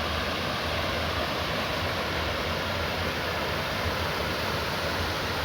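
Creek waterfall rushing steadily, water pouring over the upper tier of the falls with a constant low rumble under the hiss.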